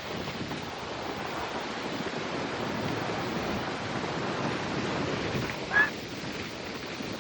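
Ocean surf washing steadily onto the shore, swelling a little midway, with wind buffeting the microphone. A brief high-pitched sound cuts through about six seconds in.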